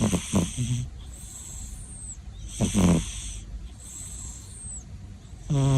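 Snoring in sleep: a loud rasping snore about every two and a half seconds, with a faint high whistling breath between snores.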